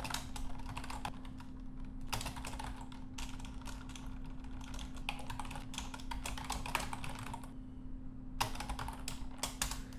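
Typing on a computer keyboard in quick runs of keystrokes, with a pause of about a second shortly before the end, over a faint steady hum.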